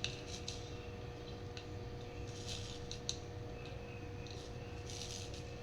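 Soldering iron running solder along a fluxed copper-foil seam: faint sizzling in short patches, with a few sharp ticks as the flux spits, over a steady low hum.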